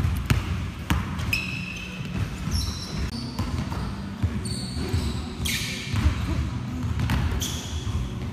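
Basketballs bouncing on a gym floor in irregular thuds, with short high sneaker squeaks from players' shoes.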